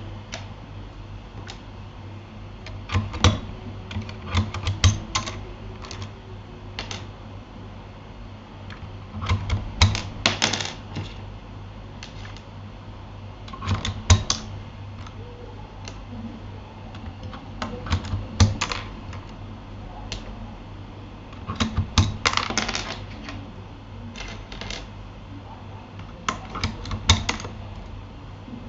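Bursts of keystrokes on a Keychron K8 mechanical keyboard: short clusters of clicky taps every three or four seconds, over a steady low hum.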